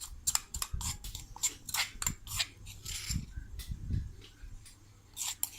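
A spoon scraping and clicking against a mortar, scooping out pounded garlic, coriander seed and black pepper paste, in a run of irregular scrapes with a short cluster near the end.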